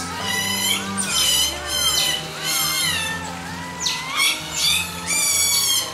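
Asian small-clawed otters giving a run of high-pitched squealing calls, about one a second, over a low steady hum.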